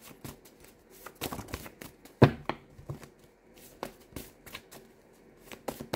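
Tarot cards being handled: scattered soft clicks and snaps of cards being shuffled, pulled and laid down, with the sharpest snap a little over two seconds in.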